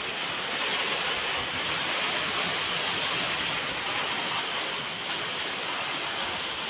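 Rain shower falling on a concrete rooftop: a steady, even hiss of drops.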